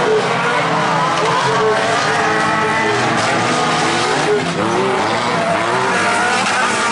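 Engines of several dirt-track stock cars running hard together, their overlapping pitches rising and falling as the drivers rev through the corner.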